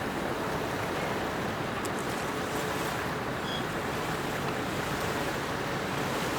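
Steady harbour ambience: a continuous wash of water and waves mixed with distant traffic noise. A faint, short high tone sounds about three and a half seconds in.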